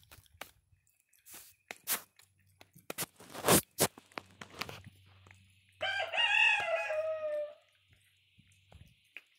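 Sharp crunching clicks through the first half, as a long-tailed macaque eats close to the microphone. Then, past the middle, a single long pitched animal call of about two seconds, falling in pitch at its end.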